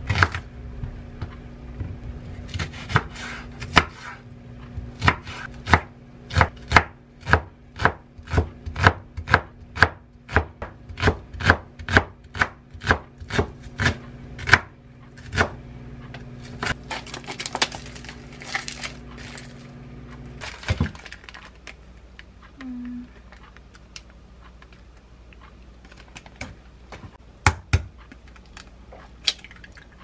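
Kitchen knife chopping a green onion (daepa) on a wooden cutting board, with rapid, even knife strikes about two a second. The strikes thin out to scattered cuts after about fifteen seconds. A few sharp knocks come near the end.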